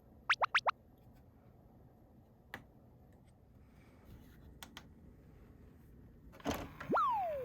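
A quick run of four falling whistle-like sweeps, then a few sharp clicks. Near the end come a short rattling burst and a tone that rises sharply and slides slowly back down, like added cartoon sound effects.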